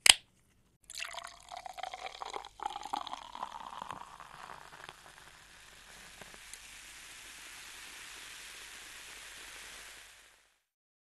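Fizzy soda poured into a glass, opening with a short sharp burst. The pour rises in pitch as the glass fills, then settles into a steady fizzing hiss that fades out about ten seconds in.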